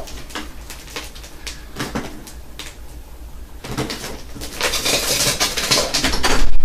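Dry ice fizzing in water inside a plastic jug, with clicks and scrapes as the plastic screw cap is twisted on tight to seal it. The noise builds over the last few seconds and is loudest near the end.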